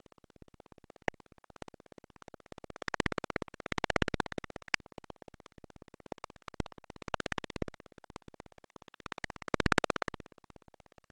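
Music with a plucked, guitar-like sound, growing louder three times.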